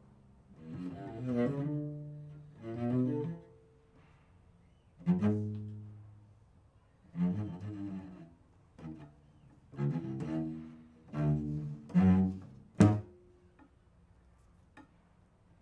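Solo cello played with the bow in short, separated phrases with brief pauses between them, several opening with a sharp accented attack. The loudest is a sudden stroke about 13 seconds in, followed by a pause.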